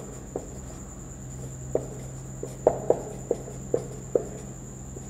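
Whiteboard marker writing: a series of short, irregular squeaks and taps as the pen tip strokes and lifts off the board, bunched most densely in the middle of the stretch. A steady high-pitched whine and a low hum run underneath.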